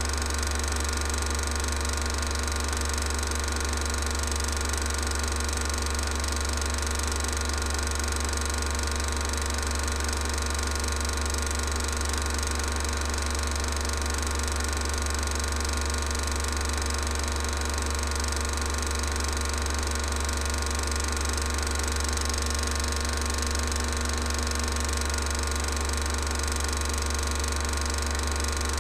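16mm cine film projector running: a steady mechanical whirr and clatter with a strong low hum, unchanging throughout.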